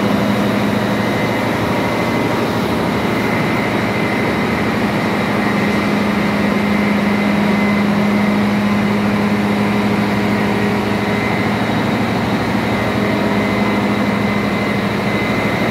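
Steady, loud machinery running in a ship's engine room, a constant low hum with a few steady higher tones over broad mechanical noise.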